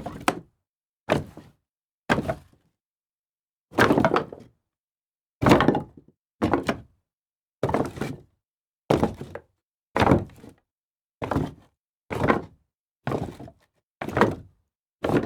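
Pieces of wood tossed down one after another, each landing with a thunk, about one a second, several with a quick smaller bounce right after the first hit.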